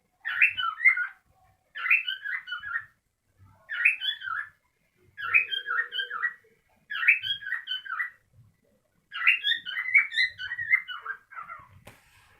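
A cockatiel calling in a run of about six short chirping phrases, each a second or so long, with brief pauses between.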